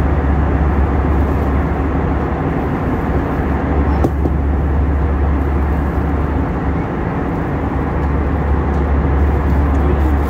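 Steady jet airliner cabin noise in cruise: a constant low rumble of engine and airflow heard from a window seat beside the engine.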